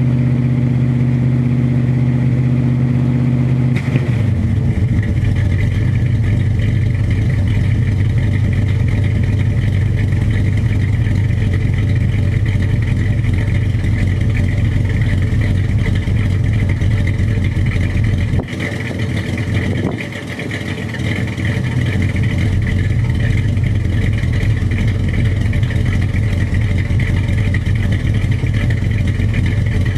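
1978 Chevrolet pickup's engine running, heard from behind the truck. About four seconds in its steady note turns rougher and busier, and it briefly drops off twice around two-thirds of the way through.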